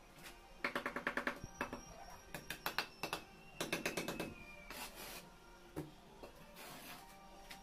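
Trowel scraping and tapping wet mortar against a concrete block in short bursts of rapid scratches, three times, over background music.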